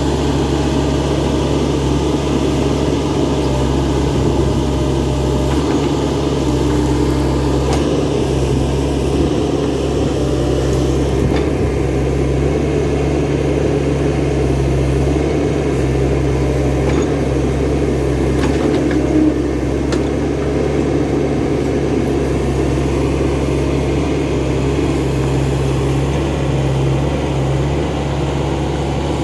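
Kotrack KE70 crawler excavator's engine running steadily at an even speed, with a few faint clicks.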